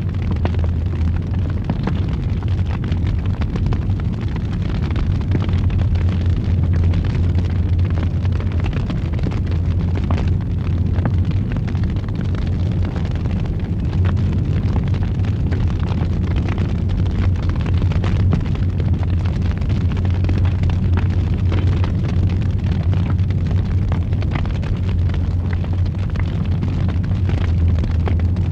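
Wood fire burning steadily in a fireplace: a continuous low rumble of the flames with many small crackles and pops throughout.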